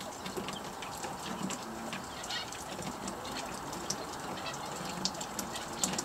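Small songbirds giving short, scattered high chirps and chips, many over the few seconds, over a steady background hiss.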